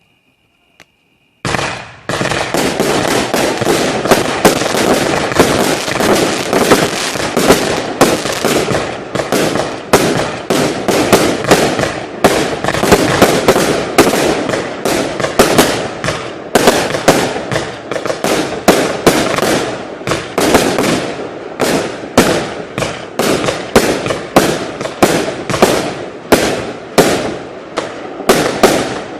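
Compound firework battery firing: after a brief pause it sets off a rapid, unbroken string of sharp shots and bursts, several a second.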